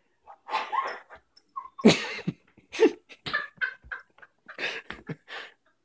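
Standard Poodle whining in a string of short, separate whimpers, unhappy at walking in his new dog mittens.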